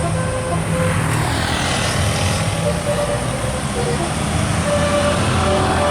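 A telolet musical air horn playing held notes that step from one pitch to another, fading out in the first second and starting again from about halfway, over a vehicle engine running. A brief hiss comes about a second in.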